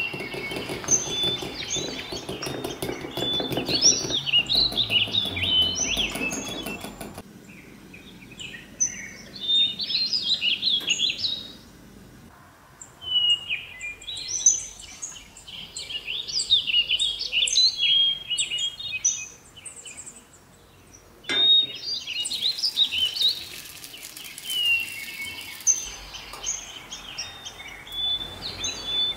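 Songbirds chirping and twittering: many short high calls and trills in repeated phrases, pausing briefly now and then.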